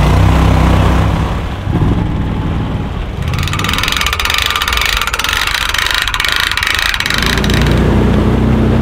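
A duck boat's motor running steadily, then a stretch of rapid clicking and hiss from a hand-cranked trailer winch. Near the end an eight-wheeled amphibious ATV's engine runs as it pulls the boat trailer out of the water.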